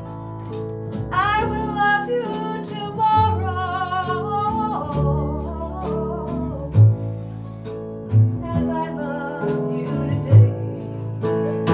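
Live acoustic folk band playing: a sung melody with vibrato over strummed and plucked acoustic guitar and low bass notes. The singing pauses for a couple of seconds in the middle, while the instruments carry on.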